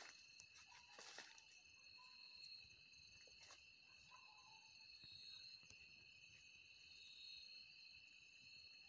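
Faint, steady chirring of night insects, two high tones held without a break, with a few soft rustles of leaves and brush.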